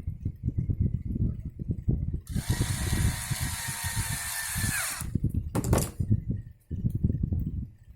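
Cordless screwdriver running for about three seconds with a steady whine that drops in pitch as it stops, followed by a brief second burst. Low knocks and rustling from parts being handled run around it.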